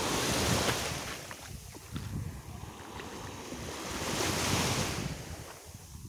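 Small sea waves breaking and washing up on a sandy shore, the wash swelling twice, with wind buffeting the microphone.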